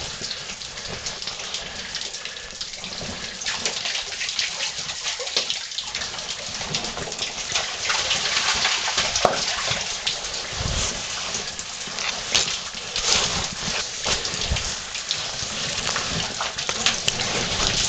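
Water running and dripping in a cave: a steady splashing hiss full of fine ticks, with a few dull knocks.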